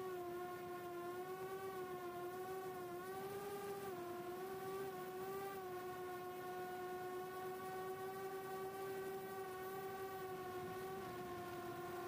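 Four-inch FPV quadcopter's HGLRC 1303.5 4500kv brushless motors and propellers whining at a steady cruise pitch, dipping and rising slightly several times as the throttle shifts.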